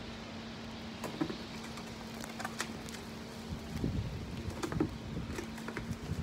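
Scattered rustles, clicks and light knocks of a homemade pole apple picker being worked among apple tree branches, over a steady low hum and hiss.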